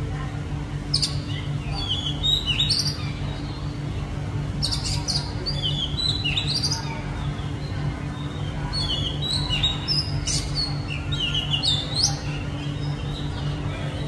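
Oriental magpie-robin singing: a series of phrases of varied whistled notes that slide quickly up and down, with short pauses between them. A steady low hum runs underneath.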